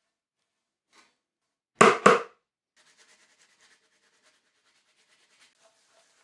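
Two sharp clacks of small hard parts being handled at a bicycle frame's bottom bracket shell, a quarter of a second apart, followed by faint scratchy handling noises.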